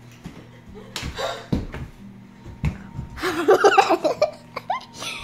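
A child laughing and squealing close to the microphone, with a couple of dull thumps in the first half.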